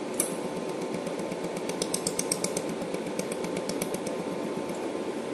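Jewelry laser welder firing pulses onto metal, each pulse a sharp tick. There is a single tick just after the start, then two quick runs of about eight ticks a second around the middle, over a steady hum.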